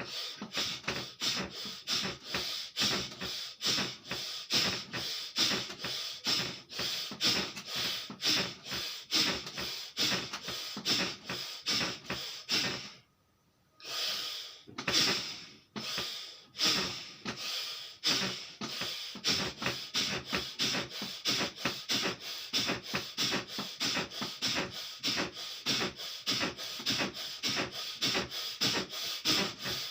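Bhastrika pranayama (bellows breath): forceful, rapid breaths in and out through the nose, about two to three a second, with a short pause about 13 seconds in before the pumping resumes.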